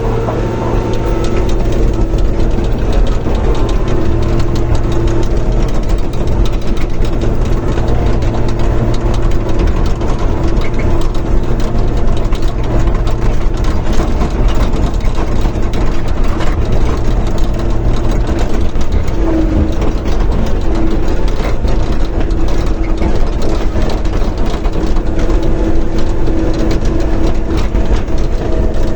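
John Deere 850 crawler bulldozer's diesel engine running steadily and loudly, with a dense clatter of sharp clicks over the engine note. The engine gets louder just after the start and shifts slightly in pitch about two-thirds of the way through.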